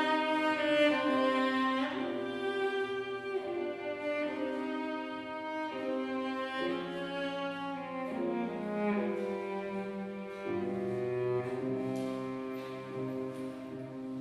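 Cello playing a slow melody of long bowed notes, each held for a second or two, with a deeper note entering about ten seconds in.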